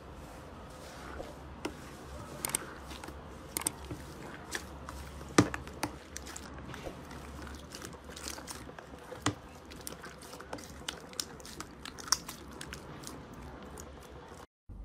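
Hands squeezing and kneading thick slime in a plastic tub: soft sticky squishing with many irregular small clicks and pops, one louder pop about five seconds in. The sound cuts out briefly just before the end.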